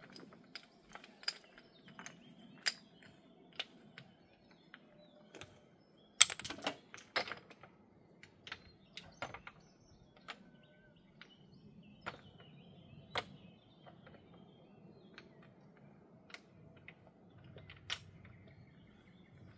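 Irregular sharp clacks and knocks of stone on stone as stones are handled and set into a dry stone wall, the loudest cluster about six seconds in.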